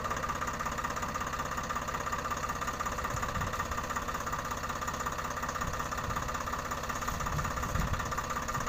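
Three-cylinder diesel tractor engines idling with an even low chugging, with a few brief heavier swells from about three seconds in.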